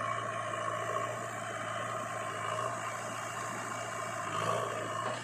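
Diesel engine of heavy earth-moving machinery running steadily at a constant speed.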